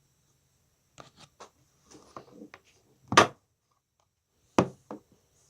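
Slime being squeezed and stretched by hand, giving a series of small clicks and crackles from popping air bubbles, with a loud sharp pop about three seconds in and two more pops near the end.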